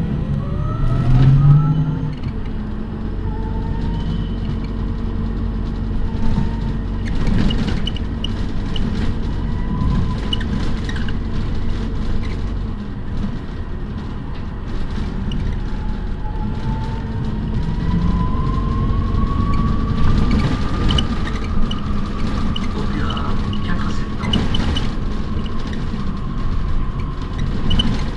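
City bus running, heard from inside the passenger cabin: a steady drive hum with a whine that rises in pitch about halfway through as the bus speeds up, then levels off. A few light clicks and knocks from the bus body.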